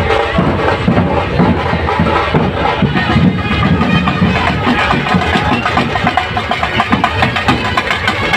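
Street brass band playing: trumpets and a large brass horn over steady drumming.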